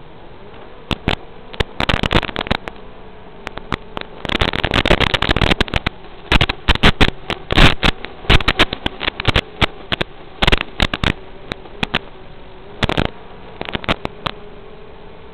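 A 5-inch FPV quadcopter's motors and three-blade props give a steady buzz, rising slightly in pitch near the end, heard through the onboard audio feed. Loud crackles of static come and go across it, thickest through the middle, as the analog video link weakens.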